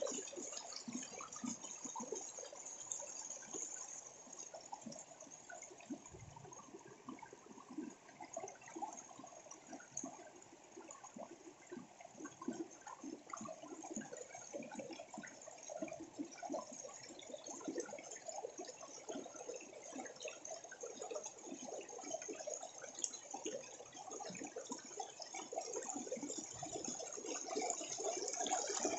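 Water cascading over rocks: continuous splashing and burbling, growing a little louder over the last few seconds.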